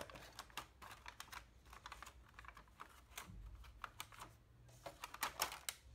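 Faint, irregular clicks and crackles of a takeout meal's packaging being handled and opened, with a denser, louder cluster about five seconds in.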